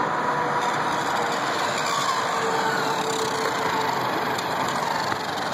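A steady rush of vehicle noise, with a faint whine that wavers slightly in pitch.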